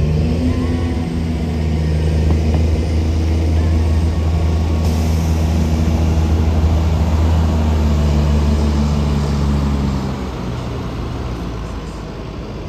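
Engine of a parking-lot tram's tractor running steadily close by, a low even hum that fades near the end.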